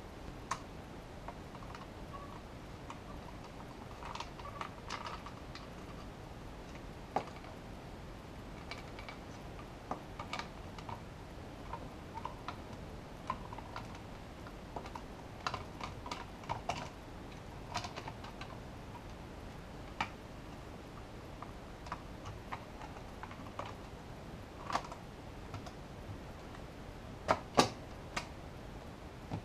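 Irregular small clicks and taps of a Behringer Ultragain MIC2200's circuit board and aluminium chassis being handled by hand, with two sharper clicks near the end.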